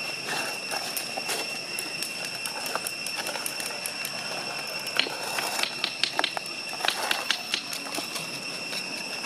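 Outdoor forest ambience: a steady high-pitched whine over a faint hiss, with a run of sharp clicks and crackles from about five to eight seconds in.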